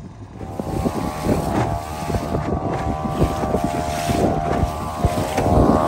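Small fishing boat's engine running at a steady pitch while under way, with water splashing against the hull and wind buffeting the microphone. The engine tone comes in about half a second in.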